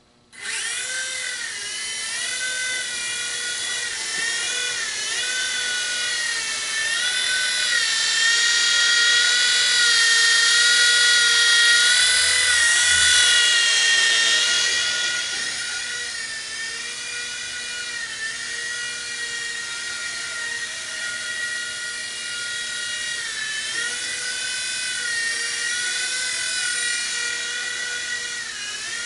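WLtoy V911 micro RC helicopter's electric motors and rotor whining as it spools up and flies. The high whine starts suddenly about half a second in, dips and rises in pitch with the throttle, and is loudest in the middle.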